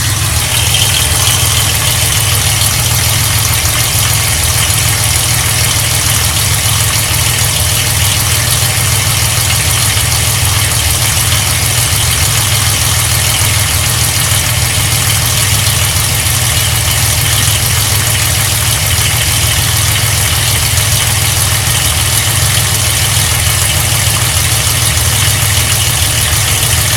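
1995 Ford Explorer's 4.0-litre overhead-valve V6 running at a steady idle, heard from underneath at the oil pan, with a noise from the bottom of the engine that began after an oil change; the owner thinks something is broken inside.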